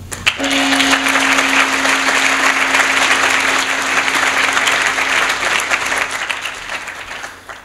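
Audience applauding, dense and steady, fading out near the end, with one steady tone held underneath for most of it.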